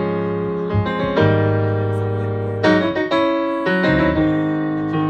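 Live band music with no singing: sustained chords that change a few times.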